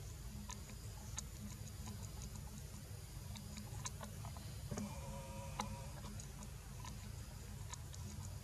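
Faint steady low rumble with scattered sharp clicks and ticks, and a short pitched call about five seconds in.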